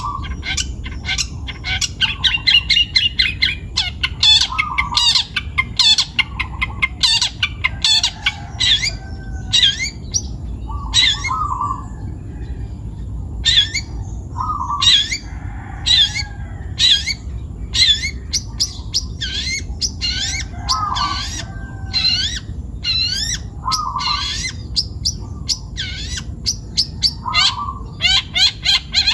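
Long-tailed shrike (cendet) singing hard: rapid runs of sharp, high chirps and squawky notes with short pauses, broken every couple of seconds by a lower, harsher call.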